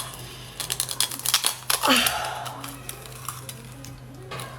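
A quick run of sharp clicks and cracks of hard objects being worked open by mouth, with a short falling vocal noise about two seconds in, then quieter handling.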